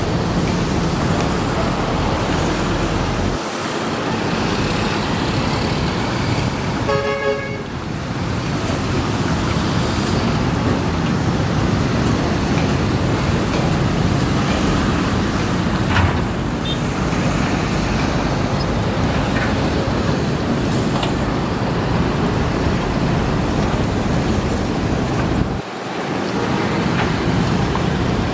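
Matador ME210LC-1 crawler excavator's diesel engine and hydraulics running steadily while it digs soil, with a vehicle horn tooting briefly about seven seconds in.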